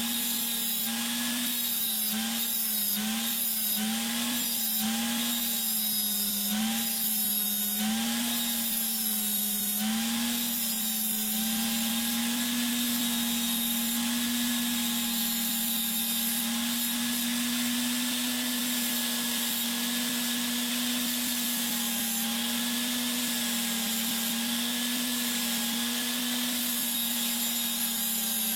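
Electric sander running and grinding down a steel kitchen-knife blade. Its motor pitch dips briefly and recovers over and over in the first ten seconds, then holds steady.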